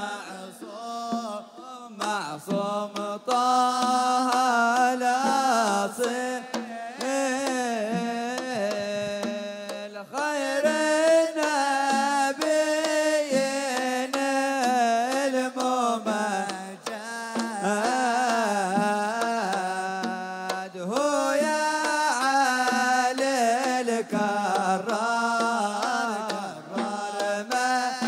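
Hadhrami zarbadi music: a wavering, ornamented melody on a wooden pipe, with singing, over steady strokes on a large double-headed drum.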